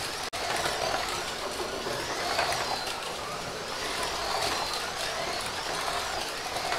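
Two Carrera 1/24-scale slot cars lapping the track, their small electric motors whining and rising and falling in pitch again and again as the cars speed up and slow for the turns.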